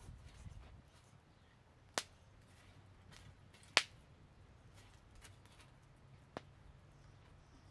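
Three sharp cracks a couple of seconds apart, the middle one the loudest, with a few fainter ticks between them.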